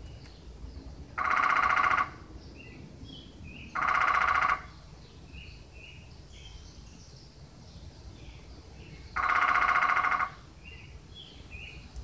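A woodpecker drumming in three loud, rapid bursts of about a second each: two close together, then a third about five seconds later. Each burst rings in the same even set of tones. Small birds chirp faintly between the bursts.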